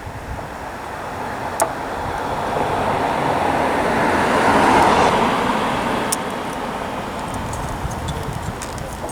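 A vehicle driving past, its noise swelling to a peak about halfway through and then fading away. Two sharp clicks stand out, one early and one after the peak.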